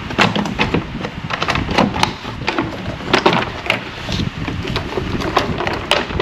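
Irregular clanks, clicks and knocks of hand tools and metal parts being worked on under a vehicle's hood, sometimes several in quick succession.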